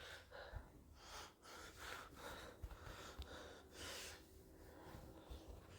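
Near silence, with a few faint breaths close to the microphone and some small soft thumps.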